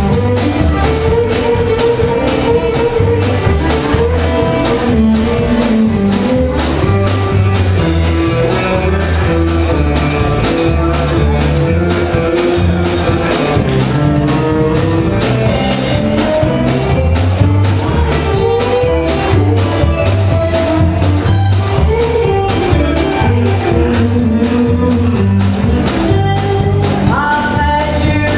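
Live country band playing: fiddle, electric guitar and bass guitar over an even drum beat, with a walking bass line and a run of rising notes near the end.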